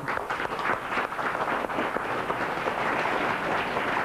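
Studio audience applauding, a steady even clapping.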